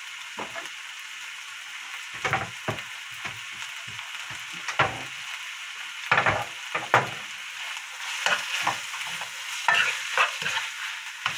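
Kimchi and rice sizzling in a nonstick frying pan, with a slotted spoon scraping and knocking against the pan as the fried rice is stirred. The stirring knocks come more often in the last few seconds.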